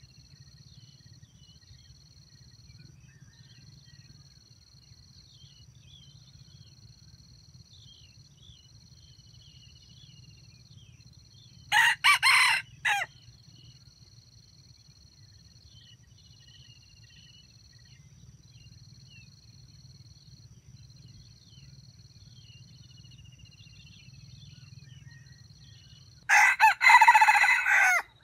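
Red junglefowl rooster crowing twice: a short crow broken into stammering pieces about halfway through, and a longer crow near the end. A steady high insect drone runs underneath.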